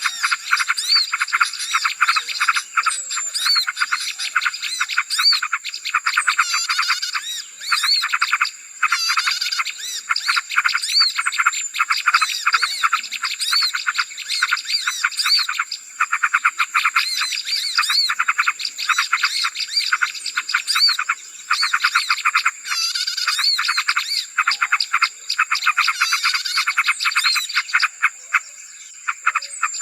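Bird-lure recording of small birds: dense, rapid chattering with many short high chirps, over a steady high-pitched whine.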